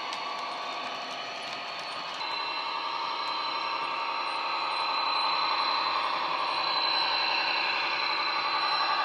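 Recorded sound of a DB class 218 diesel-hydraulic locomotive running, played by an ESU LokSound 5 sound decoder through a model locomotive's bass-enhanced speaker. It grows gradually louder as the model approaches, with a thin steady high tone over the engine sound.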